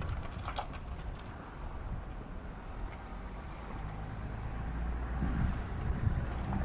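Low, steady rumble like a vehicle engine running, with a few light clicks early on.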